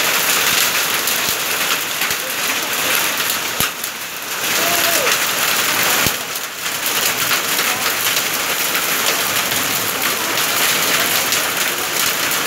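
Heavy rain mixed with hail pelting a paved surface and puddles: a dense, steady hiss with scattered sharp hits, easing briefly twice.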